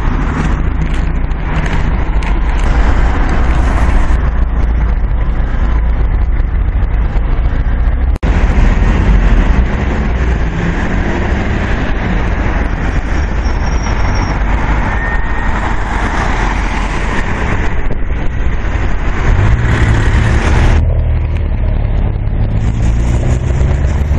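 Road traffic: cars driving past close by on a roundabout, a steady noisy rumble with strong low end. The sound changes abruptly twice, about a third of the way in and near the end.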